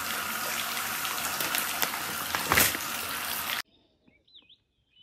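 Water running from a bathtub faucet into a jetted tub, a steady rushing that grows briefly louder about two and a half seconds in and cuts off suddenly about three and a half seconds in. Then quiet, with faint high bird-like chirps.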